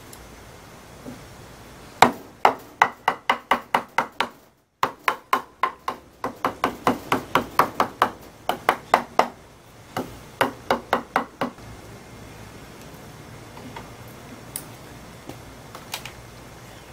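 A hammer driving nails into a wooden lumber frame: runs of quick, even blows, about four a second, with a few short pauses between runs.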